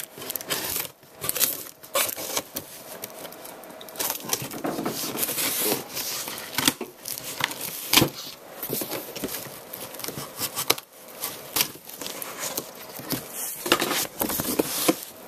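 A large cardboard box being opened: packing tape torn off and cardboard and packing crinkled and handled, with irregular tearing and rustling and scattered sharp knocks.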